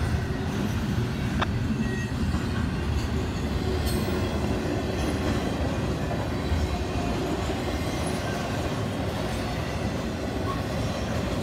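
CSX intermodal freight train of double-stack container cars and trailer-carrying flatcars rolling steadily past: a continuous rumble of wheels on rail with a few brief clicks.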